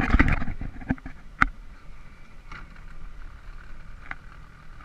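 Knocks and clatter in an aluminum jon boat, loudest at the very start, then a few single sharp taps spaced out over a steady low hum.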